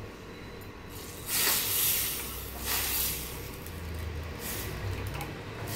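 Hot butter tadka with asafoetida and dried red chillies poured from a ladle into cooked dal, sizzling in two bursts, about a second in and again around three seconds.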